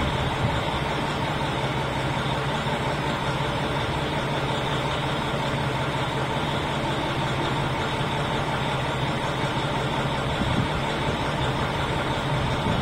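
Diesel railcar engine running steadily, a constant low hum with no rise or fall in pitch.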